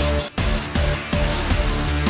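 Background music: a loud, full track with a steady beat, dropping out for an instant about a third of a second in.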